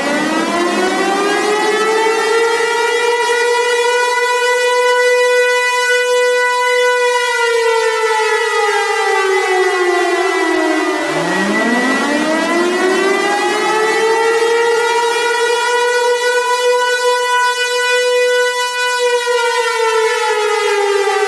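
Outdoor tornado warning siren wailing. Its pitch climbs from a low growl to a held high note, then slowly sinks, and starts climbing again about eleven seconds in. A steady high tone runs underneath throughout.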